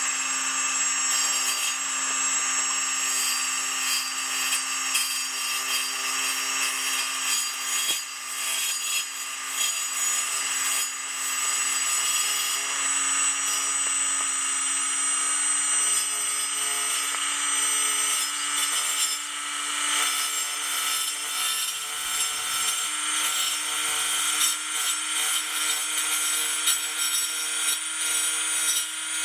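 Homemade table saw running steadily, its circular blade cutting a series of notches into a wooden block. The motor's whine holds one pitch that creeps slowly upward, under the rasp of the blade in the wood.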